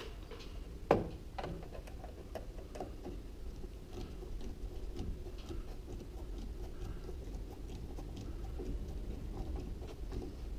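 Screwdriver turning the screws of a garage door opener's cover panel by hand: a run of faint ticks and light clicks, with one sharper click about a second in.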